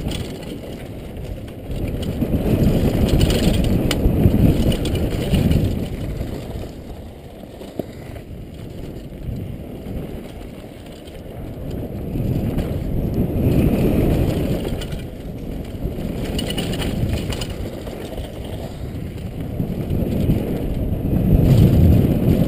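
Downhill mountain bike descending a dusty, rocky trail, heard from a helmet-mounted action camera: a low rumble of tyres on dirt and wind that swells and fades every few seconds, with clicks and rattles of the bike over the bumps.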